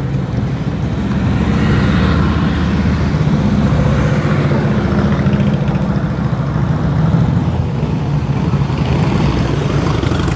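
Harley-Davidson V-twin touring motorcycles and a trike passing one after another at low speed, their engines running with a steady low sound.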